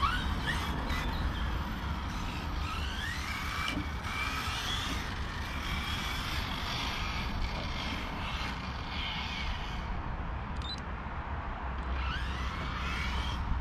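Electric motor of a Serpent SRX8 GTe 1/8-scale RC car whining, rising and falling in pitch over and over as it speeds up and slows through the corners.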